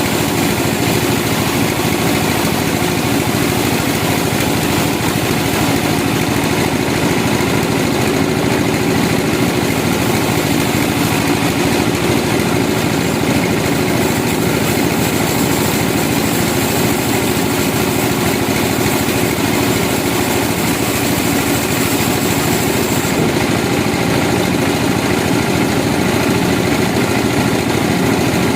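Sawmill machinery running steadily, with an engine droning at an even pitch and level throughout.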